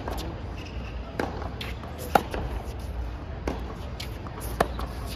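Tennis ball struck by rackets in a baseline rally on a hard court: sharp pops every second or so, with the loudest hits about two seconds in and again near the end, and fainter hits and bounces in between.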